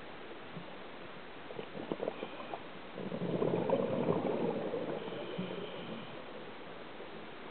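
Underwater recording: a scuba diver's exhaled bubbles gurgling for about two seconds, starting about three seconds in, over a steady hiss, with a few short clicks shortly before.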